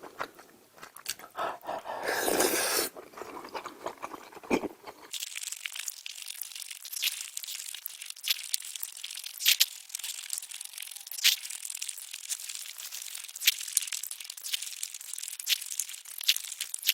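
Close-up eating sounds: chewing and crunching with many short sharp clicks, and a brief louder rustling noise about two seconds in.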